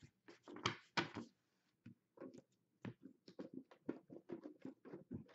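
Hockey trading cards handled on a tabletop: a few soft rustles as cards slide against each other, then a run of irregular light taps and flicks as cards are flipped and set down.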